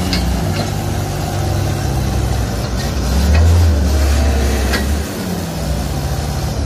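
Concrete mixer truck's diesel engine idling with a steady low rumble that grows louder for about two seconds in the middle.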